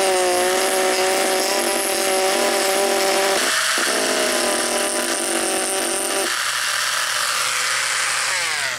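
Dremel rotary tool running at high speed, its small wheel grinding a groove along a crack in a plastic tail light lens: a steady whine over a gritty hiss. The whine breaks briefly about three and a half seconds in, and its pitch falls away near the end.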